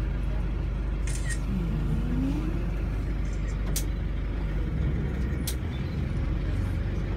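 Tour boat's engine running steadily with a low hum, with a few sharp clicks and a brief faint voice over it.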